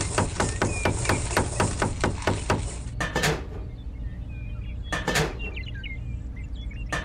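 Rapid hammer-like tapping on a small model panel, about five strokes a second. About three seconds in it gives way to single heavier knocks about two seconds apart, each with a short ring.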